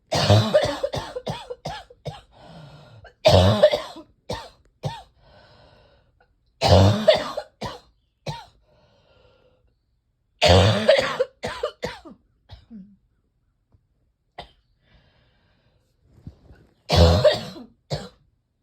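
A person coughing in five hard fits a few seconds apart, each a loud cough followed by several shorter ones. A chesty cough from heavy chest congestion that has not yet broken up.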